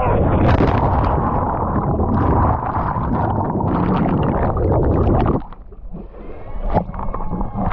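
Cliff jump into a lake heard from a head-mounted camera: wind rush of the fall, a splash as the jumper hits the water about half a second in, then muffled underwater bubbling and churning for about five seconds. The sound drops suddenly as the camera surfaces, leaving gentler water splashing.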